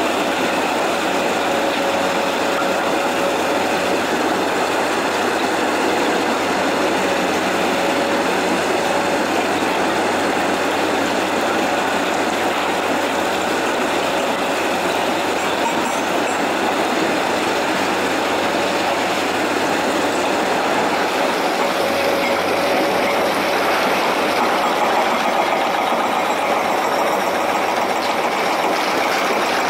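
Steady, loud din of quarry machinery: a tracked mobile rock crusher and screening plant running while hydraulic excavators feed them stone, with a faint steady whine through it.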